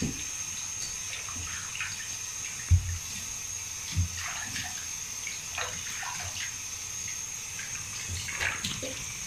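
Water from a bathroom tap running into a plastic basin, with hands splashing and scooping water over a wet chihuahua standing in it. Two dull thumps stand out, about three seconds in and again a second later.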